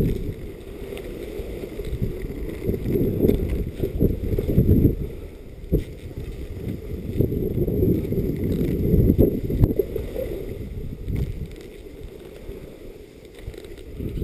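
Wind buffeting the microphone of a camera carried while skiing downhill: a low, gusty rumble that swells and falls, with skis sliding on the packed snow.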